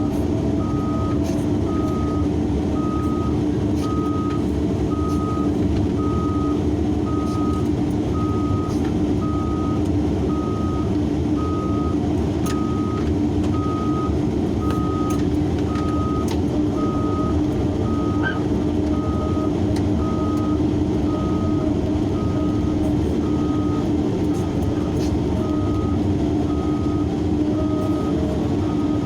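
Large hydraulic excavator's diesel engine running steadily under load, with a warning alarm beeping about once a second throughout.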